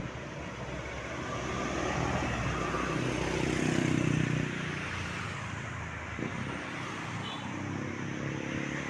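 A road vehicle passing, its engine and road noise growing louder to a peak about four seconds in, then fading back to steady traffic noise.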